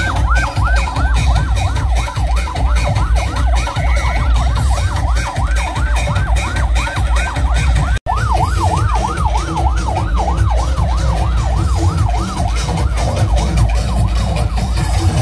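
A fast yelping siren, about four rises and falls a second, over electronic dance music with a heavy bass beat. It breaks off abruptly about eight seconds in, starts again, and fades out a few seconds later while the music carries on.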